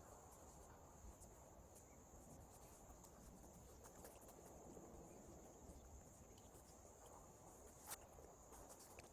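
Near silence: a faint, steady high-pitched drone with a few light clicks, one sharper click about eight seconds in.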